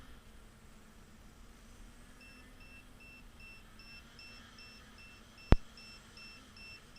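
Small electronic buzzer on an FPV quadcopter beeping rapidly, about two and a half short high beeps a second, starting about two seconds in: a battery low-voltage alarm beeper. One sharp click about five and a half seconds in.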